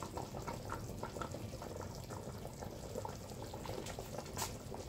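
Meat broth bubbling in an open aluminium pressure cooker, a steady fine crackle of small pops, with one sharp click near the end.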